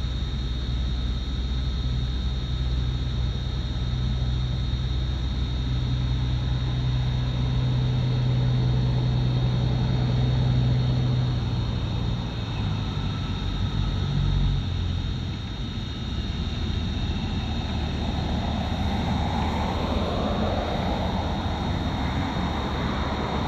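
Steady low drone of an airliner's engines heard inside the cabin during the climb after takeoff, with a thin high whine over it. About twelve to fifteen seconds in the drone shifts and eases, then a broader rushing noise builds.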